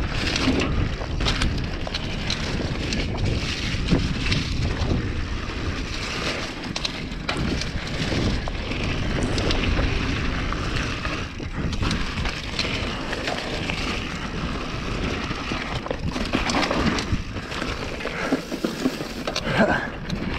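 Downhill mountain bike rolling fast over a dirt trail, with wind rumbling on the camera's microphone. Frequent clicks, knocks and rattles come from the bike over bumps and roots.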